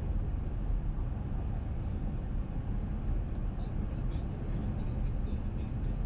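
Car driving at road speed, heard from inside the cabin: a steady low rumble of tyres and engine.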